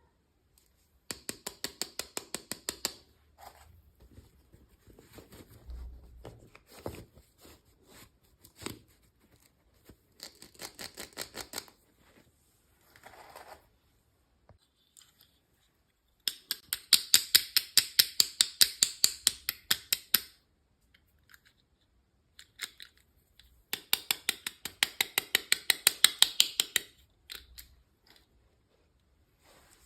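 Scissors snipping through packaging: rapid runs of sharp snips in several bursts of a few seconds each, with quieter scattered clicks and rustles between them.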